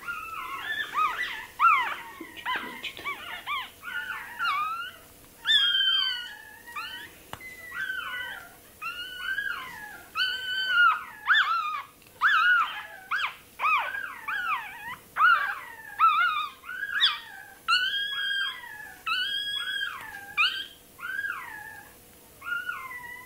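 Russian toy terrier puppy crying in a long run of high, wavering squeals, about one or two a second, in distress while its tail is being docked.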